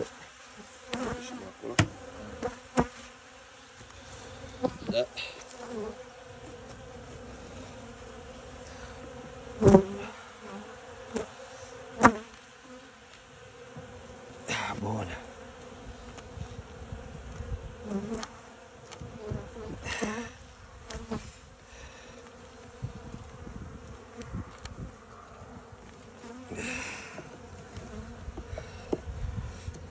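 Honeybee colony humming steadily from an opened hive. Several sharp wooden knocks and scrapes come as the frames are lifted and shifted with a hive tool; the loudest are about ten and twelve seconds in.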